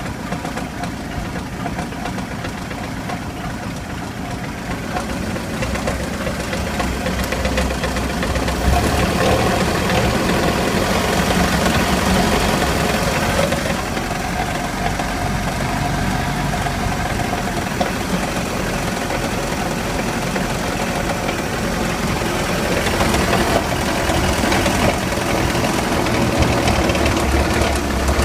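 MerCruiser marine engine running roughly, shaking and rattling. It gets louder about a third of the way in.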